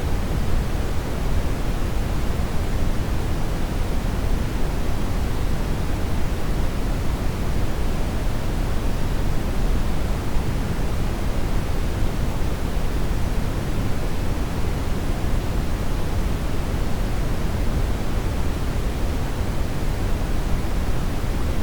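Steady, unchanging synthetic noise with no breaks or events, strongest in the low end and falling off toward the highs.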